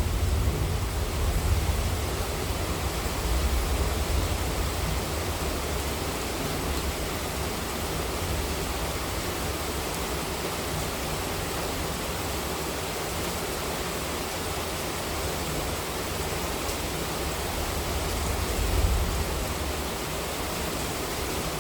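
Heavy monsoon rain falling steadily as an even hiss. A low rumble of thunder fades out at the start and swells again briefly near the end.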